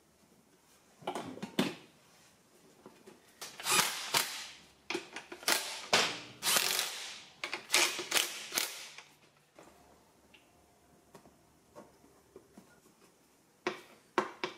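Knocks, clicks and scraping as a motorbike seat is pushed and fastened into place on a 1975 Honda MR50, then two sharp clicks near the end as its plastic side number plate is fitted.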